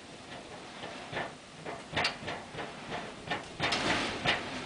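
Irregular knocks and rattles of house siding torn loose by hurricane wind, banging against the house, with a denser clatter about three and a half seconds in.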